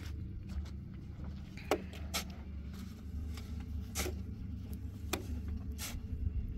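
Long-handled shovel scraping and striking into dry, dusty earth, about five sharp strokes spaced about a second apart, over a steady low hum.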